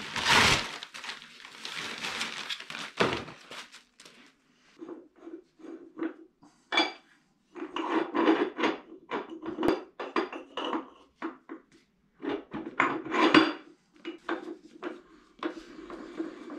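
Paper rustling for about a second, then a long run of short metallic clinks and knocks, some with a brief ring, from metal parts and hand tools being handled on an old woodworking lathe.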